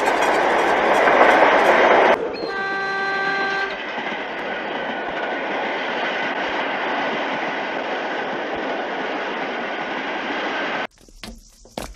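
Soviet ER2 electric multiple unit running past with a loud steady rumble, its horn sounding once for about a second and a half a couple of seconds in. The running noise goes on evenly, then cuts off suddenly near the end.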